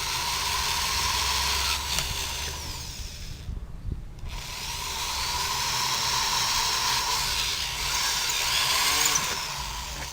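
Electric drill boring a starting hole in Eucatex hardboard, in two long runs with a short pause about three and a half seconds in.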